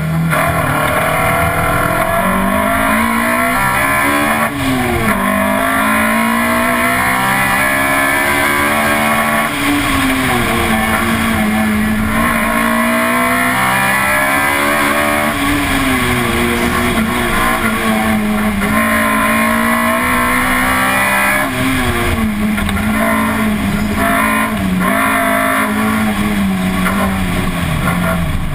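Toyota 4A-GE 20-valve twin-cam four-cylinder engine of an AE82 Corolla driven hard, its revs climbing and dropping back several times through gear changes. Heard from outside at the front of the car, with steady road and wind noise underneath.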